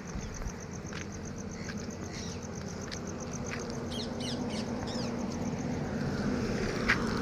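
Small birds chirping in a few quick calls about four to five seconds in, over a steady high insect trill and a low hum, with occasional crunches of footsteps on gravel.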